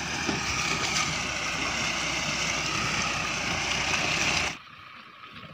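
Mahindra Bolero pickup's diesel engine running as the truck pulls through a deep, rutted mud road, heard as a steady loud noisy rush. It cuts off abruptly about four and a half seconds in, leaving a much quieter background.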